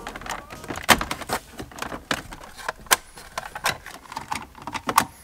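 Irregular plastic clicks and knocks as hands pry and pull at the center-dash trim and the old radio of a BMW E36.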